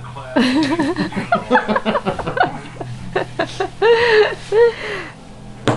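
Laughter: a run of short chuckles rising and falling in pitch, with a higher, drawn-out voice sound about four seconds in. A sharp knock comes near the end.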